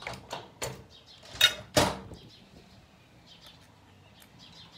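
A quick run of clicks and knocks from tools and a bolt being handled on the motorcycle engine, with two sharp, loud knocks about a second and a half and two seconds in. Then it goes quiet.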